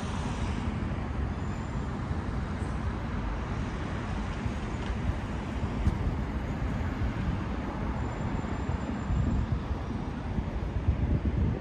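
Steady city street noise: a continuous wash of road traffic with a low rumble.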